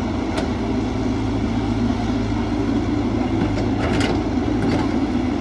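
Caterpillar 312 excavator's diesel engine running steadily with a low hum, with a few brief clicks about half a second in and again around four seconds in.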